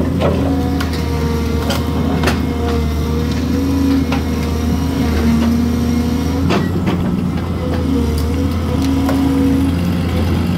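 Kobelco excavator's diesel engine running steadily close by, its hum shifting slightly in pitch as the hydraulics hold and move the bucket against the top of a spruce. A few sharp knocks stand out along the way.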